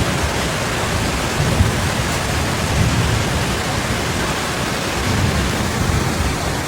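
Heavy rain pouring down in a steady hiss, with a low rumble coming and going beneath it.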